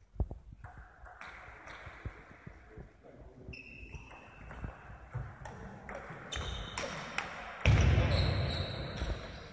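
Table tennis rally: the ball clicks sharply off the bats and the table in an uneven run of taps. About three-quarters of the way in comes a loud dull burst that fades away.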